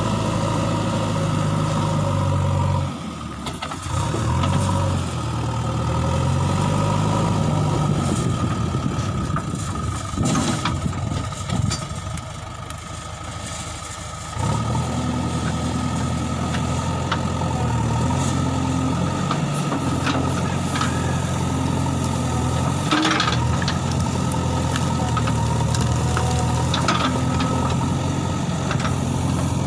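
JCB backhoe loader's diesel engine working, its note rising and falling as the machine is worked. The engine eases off for several seconds just before halfway, then runs steady and strong again, with a couple of short knocks later on.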